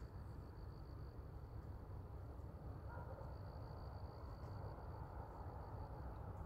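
Faint outdoor night ambience: a low, uneven rumble with a thin, steady high-pitched tone over it. The tone drops out about a second in, comes back about two seconds in and stops near the end.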